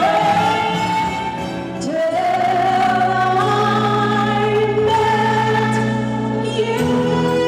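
A woman singing long held notes with vibrato over instrumental accompaniment; the music changes to another passage about two seconds in and again near the end.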